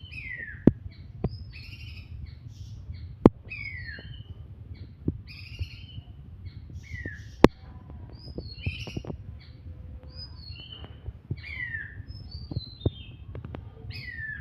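A songbird of the kind Indonesian bird-keepers call a 'kapas' singing: repeated short phrases of high whistles sliding downward, mixed with chirps. A few sharp loud clicks cut in, about a second in, near three seconds and midway.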